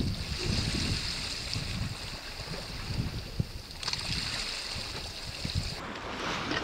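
Wind buffeting the microphone over the wash of sea waves on a rocky shore, with a steady high hiss that cuts off near the end.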